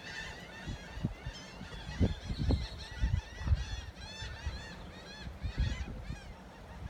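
A flock of seagulls calling, many short overlapping cries. Irregular low bumps sit underneath.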